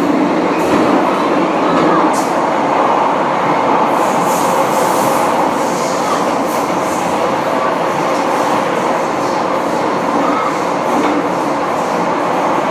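Interior running noise of an MTR modernised M-train (car A213) on the Kwun Tong Line: a steady rumble of wheels on the rails, with a few faint high clicks.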